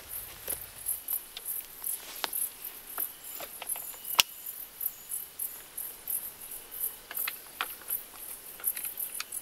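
Crickets or grasshoppers stridulating, a high pulsing chirr of about three to four pulses a second. Scattered light clicks and rustles sound over it, with one sharp click about four seconds in.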